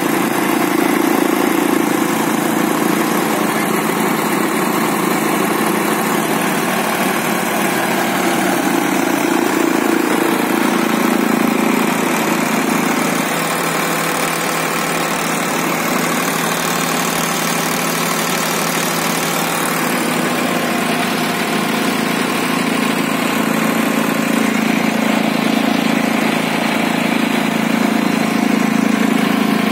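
Sonalika DI-35 tractor's diesel engine running steadily.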